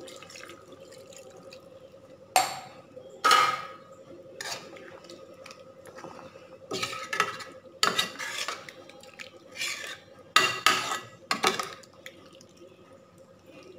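A metal spoon scraping and clinking against a stainless steel pan as a thick chicken curry is stirred, in about a dozen irregular strokes that stop about two seconds before the end.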